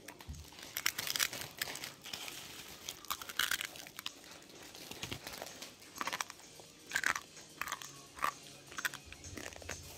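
A child chewing instant noodles with his mouth close to the microphone, making irregular clicks and crunchy mouth sounds.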